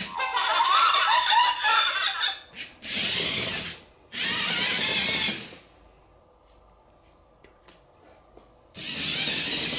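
Robot dog toy's small electric drive motors whirring in three separate bursts of about a second each. Before them, its speaker plays a short warbling electronic sound.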